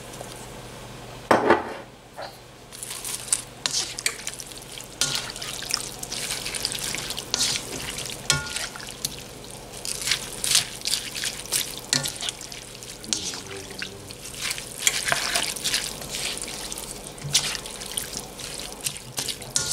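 A spatula stirring and tossing rice noodles and shredded vegetables in a wok: repeated, irregular wet scrapes and clatters against the pan, with a louder knock about a second and a half in.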